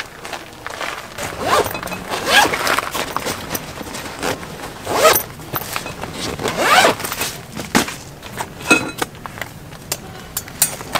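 Zipper on a canvas stove carry bag being pulled open in several long strokes, with fabric handling between them, then a few light knocks near the end as the lid is opened.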